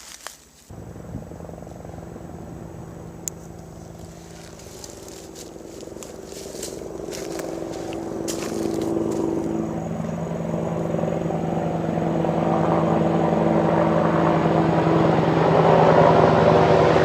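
Helicopter engine and rotor drone, steady in pitch and growing steadily louder as it approaches overhead. Starts suddenly just under a second in, with a few faint clicks and crackles over it in the middle.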